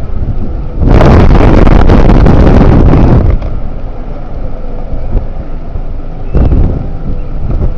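Strong wind buffeting the microphone: a loud, noisy rush about a second in that lasts some two seconds, then a shorter gust near the end.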